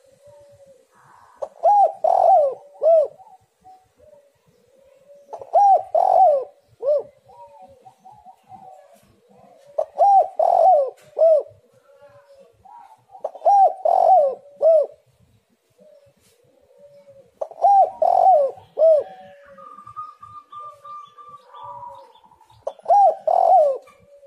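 Spotted dove (tekukur) cooing its song. A short phrase of three or four low coos repeats six times, roughly every four seconds.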